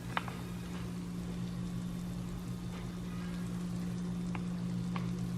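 Faint sizzling with a few small pops from cheese-and-bacon muffins fresh out of the oven, over a steady low hum.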